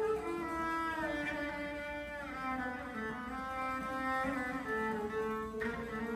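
Cello and bouzouki duo playing a Turkish saz semai in makam Neveser: the bowed cello carries a melody of held notes that slide between pitches, with the bouzouki played alongside.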